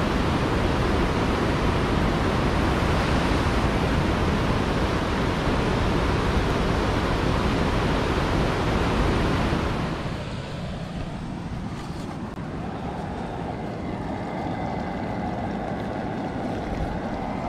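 Rushing river rapids: a loud, steady rush of white water that cuts off about ten seconds in, leaving a quieter steady hiss.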